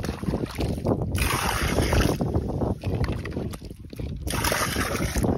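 Wind buffeting the phone's microphone: a rough low rumble that rises and falls in gusts, easing for a moment past the middle.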